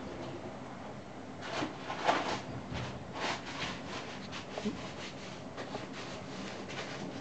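A baby sneezing, a sudden sharp burst about two seconds in, with a few softer noisy bursts over the next two seconds.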